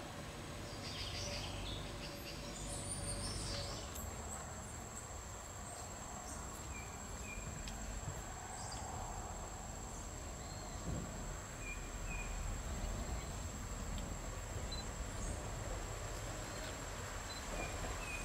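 Insect ambience: a steady high-pitched insect whine that sets in about four seconds in and holds, over a low rumble, with a few short faint bird chirps scattered through.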